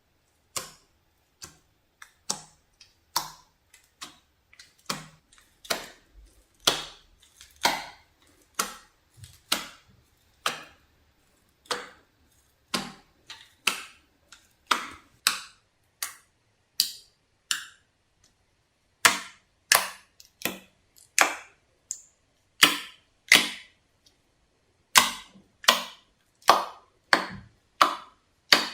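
Homemade soap slime being squeezed and pressed by hand, giving a run of sharp popping clicks, about one to two a second.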